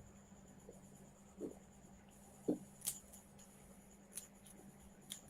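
Faint swallowing as a man drinks from a glass: a couple of soft gulps, with a few small clicks.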